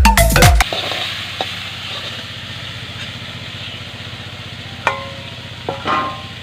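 Cabbage frying in a pot, a steady sizzling hiss, with two short metal clinks near the end. Background music cuts off in the first half second.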